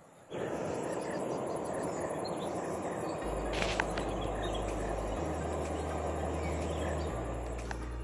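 Riverside morning ambience: a steady rush of flowing river water, with insects keeping up a high pulsing drone and a few faint bird chirps. From about three seconds in, soft low held notes of background music come in underneath.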